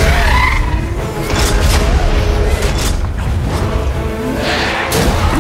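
Action-film battle soundtrack: musical score over a deep, constant rumble, with heavy booming impacts and metallic mechanical clanks from a giant-robot-versus-monster fight. There are several sharp hits between about one and two seconds in and another near the end.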